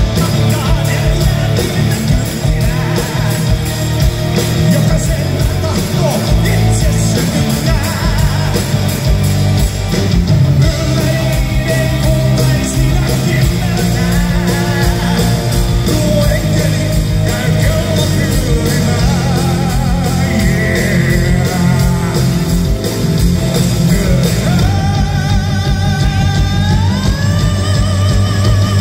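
Live heavy rock band with a singer playing loudly in a large hall, heard from the audience: electric guitars, bass and drums under sung vocals, with a rising melodic line near the end.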